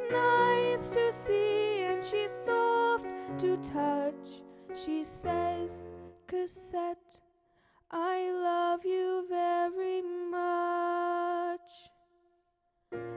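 Broadway show tune sung with instrumental accompaniment. A long note is held for several seconds and cut off, followed by about a second of silence before the music starts again.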